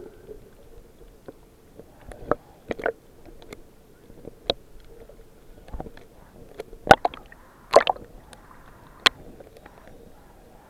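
Water sloshing and gurgling while snorkeling, with scattered sharp clicks and knocks, the loudest about seven and eight seconds in.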